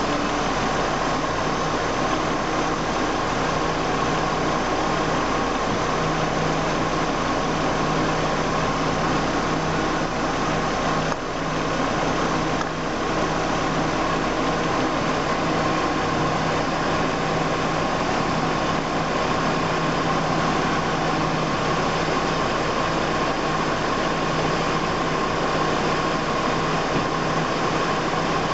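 BMW 325i E46 straight-six running at a steady idle, with an airy hiss and a steady whine. This is the intake air noise that is being shown as a fault. The level dips briefly twice, about eleven and twelve and a half seconds in.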